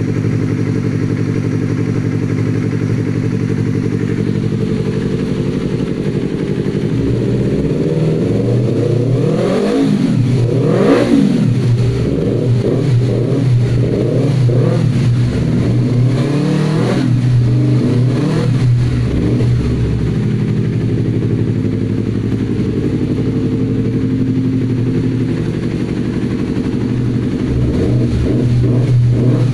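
Yamaha R25's parallel-twin engine idling through an aftermarket Akrapovic exhaust. From about seven to twenty seconds in, the throttle is blipped several times, the revs rising and falling quickly before settling back to a steady idle.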